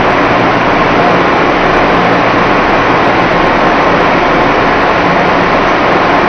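Loud, steady machinery noise with a faint hum from high-temperature jigger dyeing machines and their plant running in a textile dyeing works.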